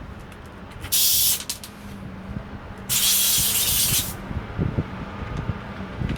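Two short bursts of pressurized spray hissing, the first about half a second long and the second about a second long, each starting and stopping abruptly.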